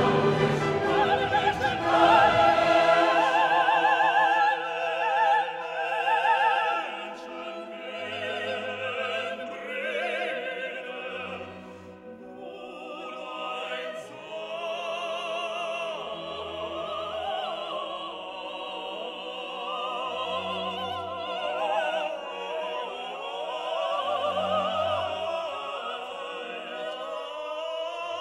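Background music: a classical piece with an operatic singing voice over orchestra, the voice wavering in vibrato. It is loudest in the first several seconds and softer after about seven seconds in.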